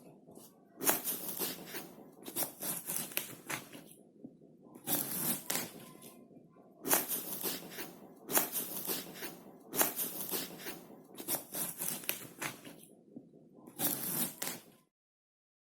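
A knife cutting crisp apple in about eight runs of quick slicing strokes, each run starting with a sharp cut and tailing off, with short pauses between. The sound cuts off suddenly near the end.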